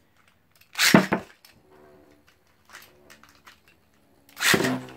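Two metal Beyblade spinning tops launched into a plastic stadium one after the other: a loud launch about a second in, then the faint steady hum of the first top spinning alone, then the second launch near the end.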